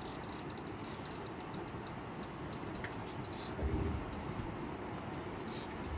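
Fishing reel clicking irregularly under load as a fish is fought on a heavily bent rod, over a steady rush of wind and river noise.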